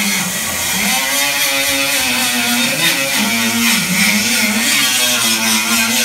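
A motor running steadily, its pitch wavering up and down.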